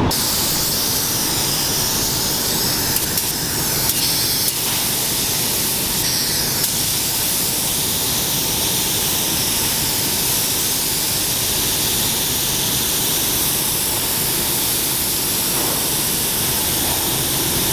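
Compressed-air gravity-feed paint spray gun spraying, a steady loud hiss that wavers slightly as the gun sweeps back and forth.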